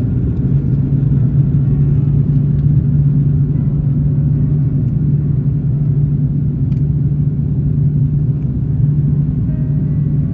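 Steady low drone of an airliner in flight, heard from inside the cabin: engine and airflow noise with a constant low hum.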